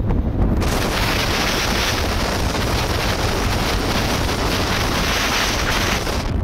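Wind buffeting the microphone of a camera mounted outside a moving car, a heavy low rumble under a steady hiss that sets in about half a second in and cuts off abruptly near the end.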